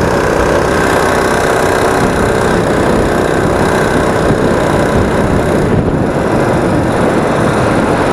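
Predator 212 single-cylinder engine of a small ATV running steadily while riding, with wind rushing over the microphone.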